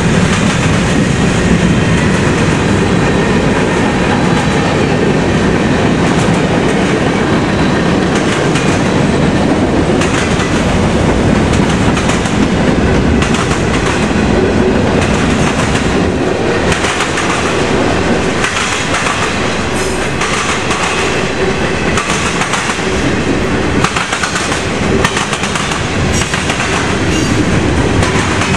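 Freight cars rolling past at speed, steel wheels clattering steadily with frequent sharp bangs as the wheelsets pound across the rail joints and the diamond crossing.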